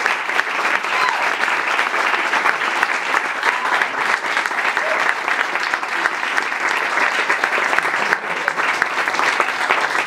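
Audience applauding steadily, a dense patter of hand claps, with a few voices over it.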